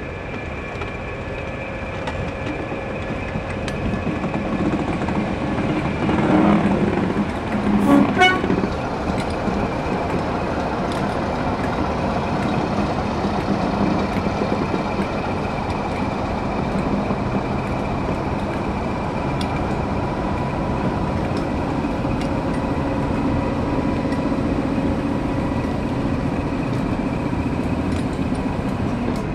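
Class 08 diesel shunter's English Electric six-cylinder engine working as it pushes a Peak locomotive along the track. The engine note builds over the first few seconds. There is a short horn toot about six to eight seconds in, then steady running as the locomotives roll past.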